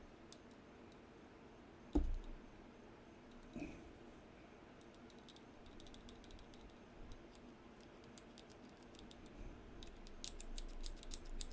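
Faint, sharp little clicks of a titanium mechanical pencil's lead-advance mechanism being worked by hand, scattered at first, then quicker and closer together near the end, with a soft knock about two seconds in.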